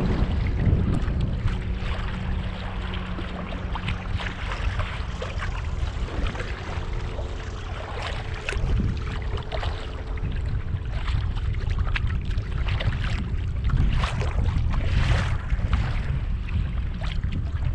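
Wind buffeting the microphone on a kayak's bow, with choppy water slapping and splashing irregularly against the plastic hull. A faint steady hum sits underneath for most of it.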